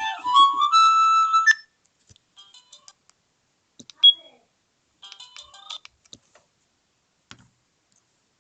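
Sagem my700X mobile phone ringtone: an electronic melody of stepped notes, rising at the end, that stops about a second and a half in. Then faint scattered clicks and a single short, loud high beep about four seconds in.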